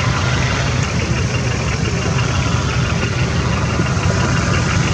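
Nissan Patrol K160's SD33 turbo-diesel inline-six running steadily at low revs as the truck crawls up a steep dirt trail.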